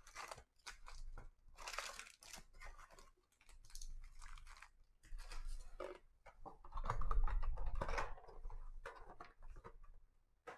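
Foil-wrapped 2020 Panini Donruss Optic Football trading card packs crinkling and rustling as they are pulled out of the cardboard box and stacked on the table, in irregular handling strokes, loudest about seven seconds in.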